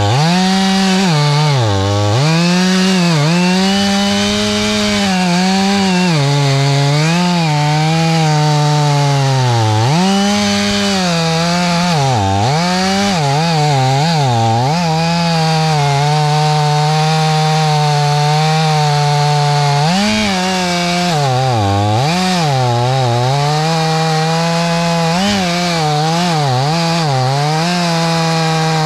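Stihl 500 two-stroke chainsaw with a 25-inch bar running at high revs and cutting wood. Its engine pitch drops and climbs back again and again, then holds steadier and high for long stretches in the second half.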